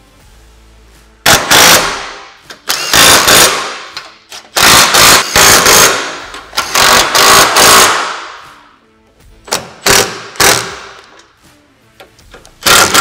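Milwaukee Fuel cordless impact wrench with a 13 mm socket hammering bolts tight, in about nine short runs starting about a second in, as the rack's clamp bolts are run down to full tightness.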